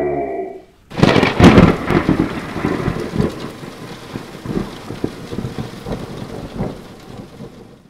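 Thunder sound effect: a sudden loud crack about a second in, followed by crackling and rumbling that slowly fades, with a rain-like hiss beneath. The sound cuts off abruptly at the end.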